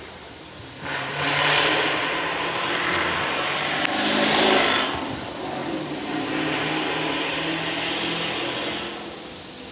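A loud car accelerating up the street and driving past: engine and tyre noise swell about a second in, with the engine note stepping through gears, then fade near the end.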